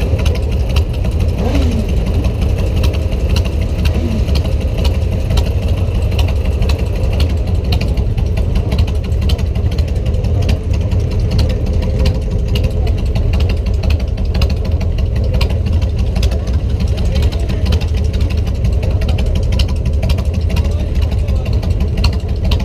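Motorcycle and scooter engines idling close by, a steady low rumble with a fine rapid ticking on top.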